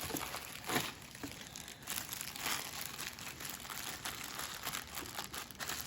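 Plastic packaging crinkling and rustling in irregular crackles as a small part, the vacuum's wall hanger, is pulled out and unwrapped.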